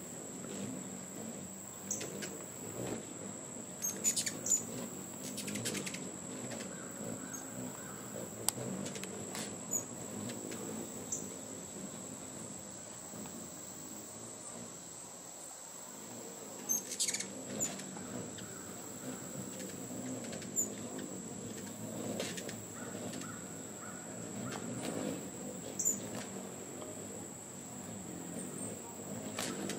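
Hummingbirds giving short, sharp chip calls every few seconds, the aggressive chatter of birds chasing each other off a feeder.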